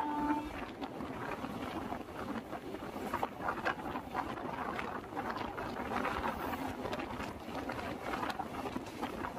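Passenger train running on the track, heard from an open coach doorway: a steady rumble with a running clatter of small clicks and rattles from the wheels and coach.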